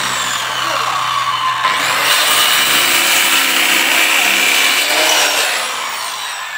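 Handheld electric circular saw starting up and cutting across a small wooden board, the blade biting through the wood from about two seconds in for around three seconds. Near the end the saw is released and the motor winds down with a falling whine.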